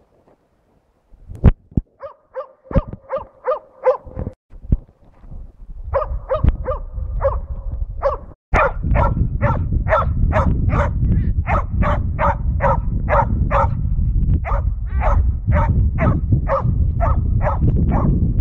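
Jämthund (Swedish elkhound) bay-barking at a moose, a steady run of short barks at about three a second: the dog is holding the moose at bay. From about eight seconds in, wind rumbles on the microphone under the barking.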